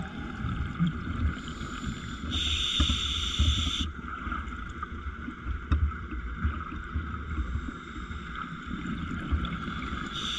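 Scuba diver breathing underwater through a regulator: a hiss of inhalation about two seconds in, lasting a second and a half, over an uneven low rumble and gurgle of exhaled bubbles.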